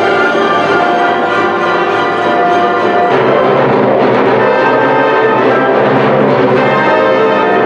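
Symphony orchestra playing a classical piece, bowed strings together with brass. The sound grows fuller and a little louder about three seconds in.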